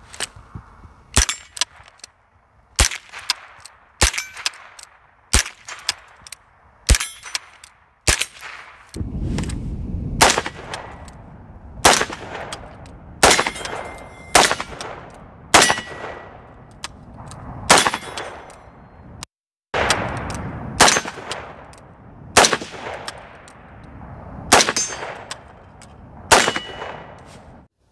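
AR-15 rifle fired one shot at a time in a steady string, roughly a shot every second to second and a half, each crack trailing off briefly. The slow cadence comes from the Kunvirt single-shot fire control group, which makes the rifle fire once and then needs the safety selector rotated to reset before the next shot.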